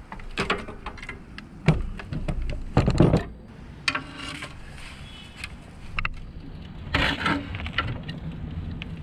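Metal clanks, knocks and rattles of a rusty steel RV step assembly being lifted and tilted by hand, its hinged steps and linkage shifting, with a few short squeaks among them. The loudest clatter comes about three seconds in.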